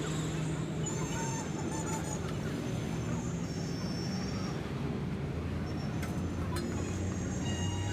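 Busy roadside background: a steady low engine hum with thin, high honk-like tones coming and going and a few sharp clicks.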